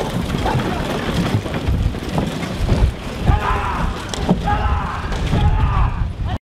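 Team of four horses galloping a chariot over sand, hooves thudding in a quick irregular beat. A man's voice shouts over it from about three seconds in.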